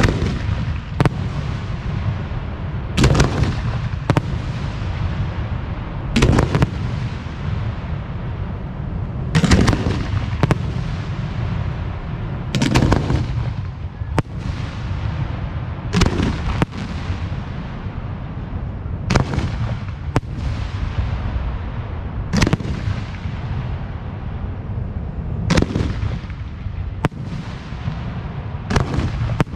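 Display fireworks show: aerial shells bursting, a loud bang about every three seconds and often two in quick succession, each trailing off in an echoing rumble.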